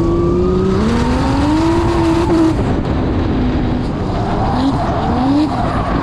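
Mercedes-Benz 190 drift car's petrol engine under hard throttle: its pitch climbs for a couple of seconds, drops sharply, then rises briefly twice more near the end, over a loud rush of wind and tyre noise as the car drifts.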